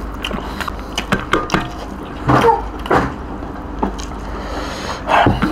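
Eating by hand from stainless steel plates: fingers scooping and pressing rice against the metal, with many short clicks and taps.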